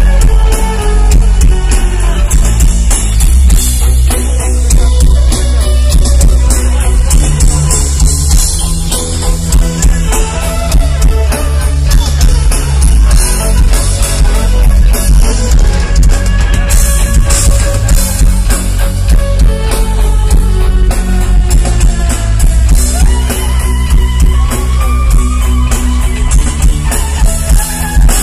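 Live rock band playing loudly through the PA, with drum kit, guitar and bass and a violin among the instruments. Recorded from the audience, so the bass is heavy and the mix is distorted.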